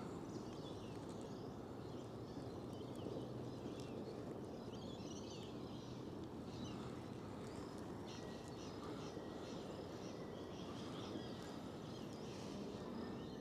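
Faint outdoor ambience with birds chirping and calling throughout.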